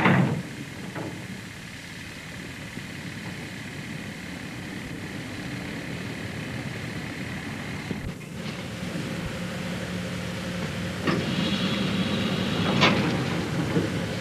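Vehicle engine and a heavy knock as a van drives onto a chain-guided car ferry. Then the ferry's machinery runs with a steady low hum and a few sharp metallic clanks.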